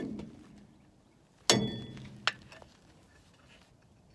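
A metal brake part strikes a hard surface with a sharp, ringing clink about a second and a half in, followed by a lighter metallic click.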